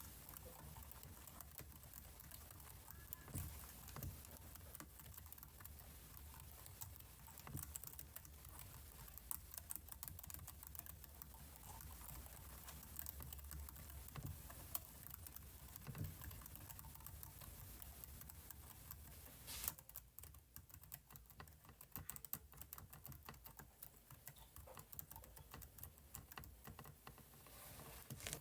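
Faint computer keyboard typing: a steady run of small, quick key clicks that grow denser about two-thirds of the way through, over a low hum that stops at that point.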